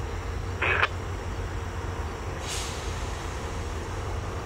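Diesel-electric locomotives idling in a yard, a steady low rumble. About 0.7 s in there is a short, sharp burst of noise, and around 2.5 s a brief faint high hiss.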